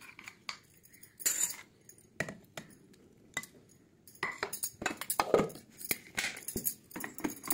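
A stainless-steel mixer-grinder jar being handled, with scattered metallic clinks and knocks that come more often in the second half.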